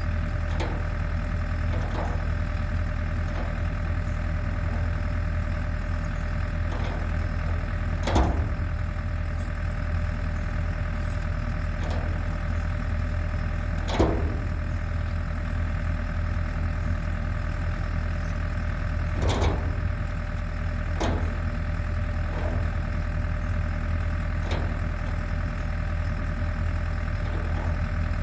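Champion portable generator's engine running steadily with an even hum, with a few short knocks scattered through, the loudest about halfway.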